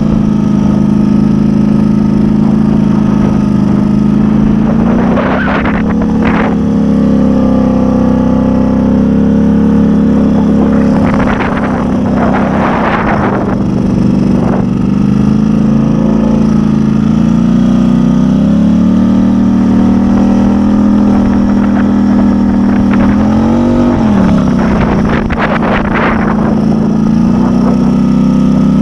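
2010 Polaris Sportsman 850 XP ATV's 850 cc twin-cylinder engine running loud through an exhaust pipe that is falling off, so it sounds close to straight-piped; engine speed holds fairly steady, rising and dropping briefly near the end. Three short rushes of noise rise over it, about five seconds in, around twelve seconds, and near the end.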